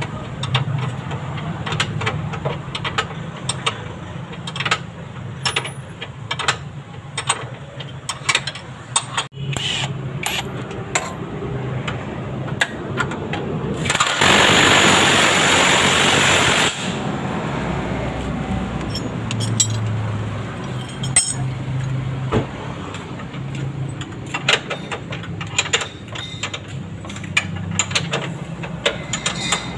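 Metal tools clinking and knocking again and again during car suspension work, over a low steady hum. About halfway through comes a loud burst of noise lasting about three seconds that stops abruptly.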